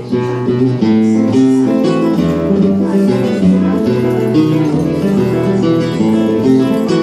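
Acoustic guitar playing a flamenco-style piece, plucked melody notes over a moving bass line. It swells louder about a second in, then runs on at a steady level.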